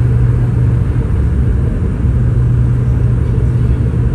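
Cabin noise of a Boeing 717 airliner: a steady, loud, low rumble of engine and airflow noise with a constant low hum.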